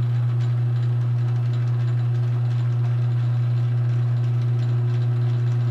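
South Bend 9A metal lathe running under power, belt-driven by a 3/4 horsepower, 1725 RPM Grizzly electric motor. It runs quietly, with a steady, even hum and no knocks.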